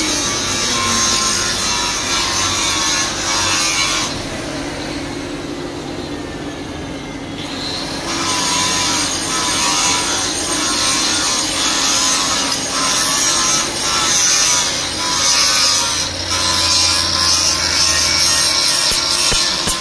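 Blacksmith's forge work on a bolo blade: repeated metal strokes over a steady hum, with a few seconds' lull about four seconds in.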